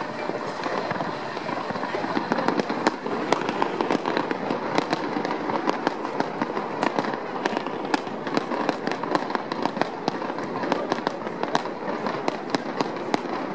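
Fireworks display: a steady stream of sharp pops and crackles from bursting shells. They grow denser and louder about two seconds in.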